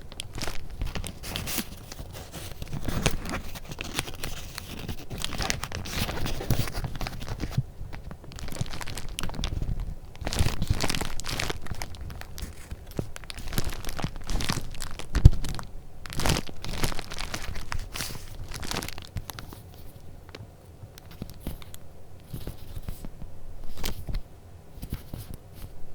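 Paper and paper goods being handled close to the microphone: continual irregular rustling and crinkling, with a single sharp knock about 15 seconds in, then quieter after about 20 seconds.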